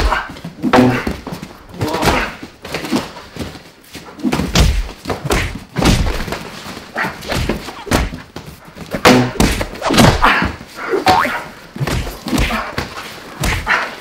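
Boxing gloves thudding on bodies and headgear during hard sparring: repeated impacts in uneven flurries, with sharp exhalations and grunts from the fighters between blows.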